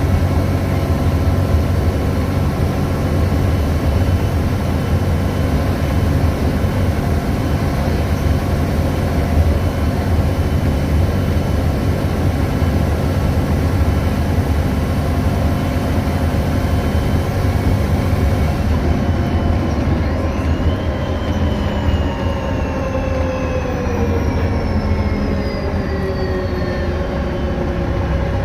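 VDL DB250 double-decker bus heard from on board: a steady low engine rumble under the whirring, hoover-like hum of its electric cooling fan. About two-thirds of the way through, the hiss drops away and a whine falls steadily in pitch.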